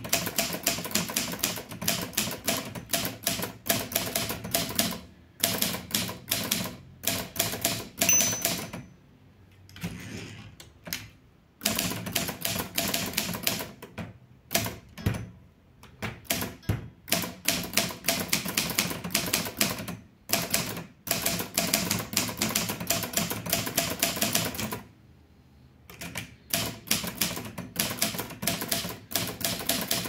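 Litton Royal 203 manual portable typewriter being typed on at a steady pace: fast runs of key and typebar strikes, broken by two short pauses. A brief high ring sounds once about eight seconds in.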